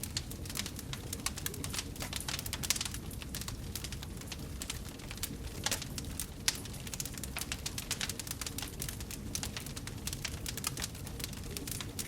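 Wood fire burning in a fireplace, crackling with frequent irregular pops over a low, steady rumble of the flames.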